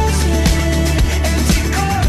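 Background pop music with a steady beat, about two beats a second, over a sustained bass line and a melody.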